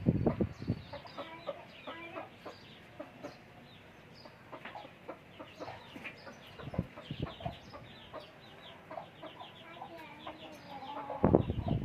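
Aseel chicks peeping rapidly over the low clucking of adult chickens at feeding. A few dull thumps come at the start and again near the end.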